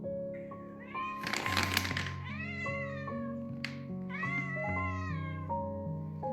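A domestic cat meowing over and over, about four drawn-out meows that rise and fall in pitch, the loudest and roughest one a little over a second in, with gentle background music playing underneath.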